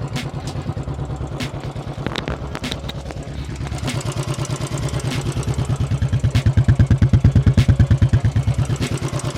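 Motorcycle engine idling with a steady, even beat, growing louder past the middle. It is freshly serviced with its engine oil changed, and the owner says the bad noise it used to make is gone.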